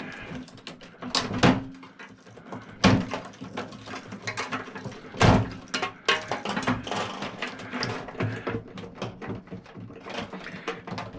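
Irregular clatter, rattling and knocks of metal parts and wiring being handled while a microwave oven is dismantled, with several sharp knocks, the loudest about five seconds in.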